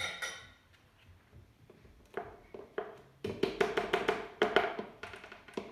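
A plastic mixing bowl knocking as it is tapped to shake the last of the flour into a stand mixer's steel bowl. A sharp knock at the start and a few scattered ones, then a quick run of about six knocks a second over the last two and a half seconds.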